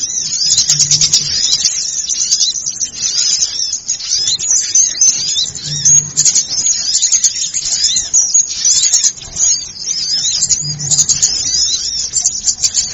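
Dense, noisy chattering and twittering of many small songbirds calling over one another without a break, as in a bird-lure recording. A faint, brief low tone comes three times, about five seconds apart.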